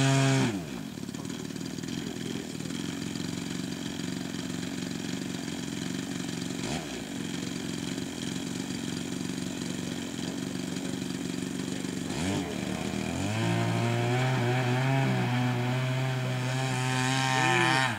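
Two-stroke GL5200M chainsaw engine turning the propeller of a large RC model plane: it runs at low revs with a few short blips of throttle, then opens up about three-quarters of the way through to a loud, steady high-rev buzz as the plane rolls for takeoff. The builder blames the plane's labored flight on a poor propeller choice and carburettor setting.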